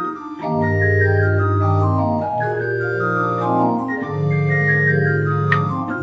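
Two-manual electronic church organ playing slow, sustained chords over held bass notes, the harmony changing every second or two, with a new chord coming in about half a second in.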